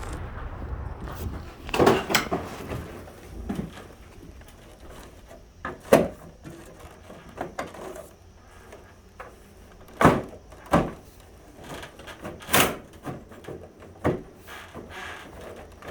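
Scattered knocks and clunks of hands-on installation work: tools, hardware and a ladder being handled and set down. The hits come at irregular intervals, the sharpest about two, six, ten and twelve and a half seconds in.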